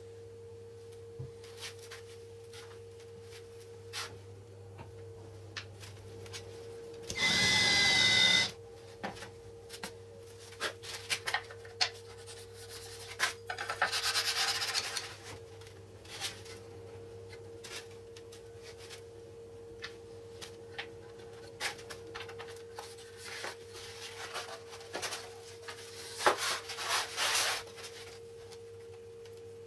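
Hands handling workshop parts: an aluminium rail slides and rubs along a laminate-board saw-guide base, with scattered clicks and knocks of small parts. A loud burst about a second and a half long, with a whine in it, comes about seven seconds in. A faint steady hum runs underneath.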